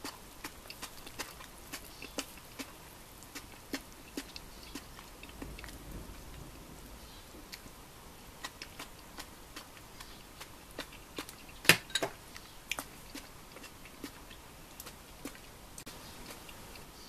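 Irregular small clicks and pops, a few a second, with one louder knock followed by two softer ones about two-thirds of the way through.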